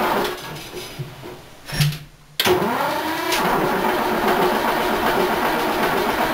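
1966 Diamond T semi truck's engine running, then dropping away just after the start. After a brief lull with one short cough it catches again abruptly about two and a half seconds in, its pitch swinging up and down for a moment, then settles into a steady run.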